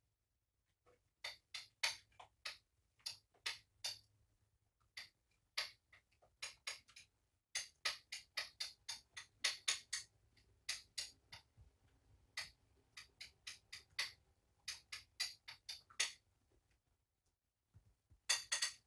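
A metal spoon tapping and clicking against a small pill crusher in quick irregular clusters, knocking out crushed medication powder that catches in the crusher's screw grooves.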